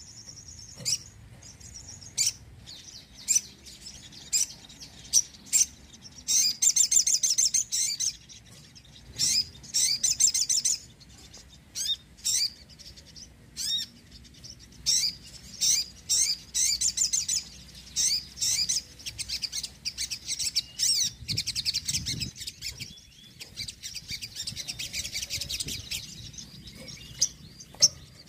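A sogon, a sunbird, singing energetically: a string of high, thin chirps and quick rattling trills in short bursts, with brief pauses between them.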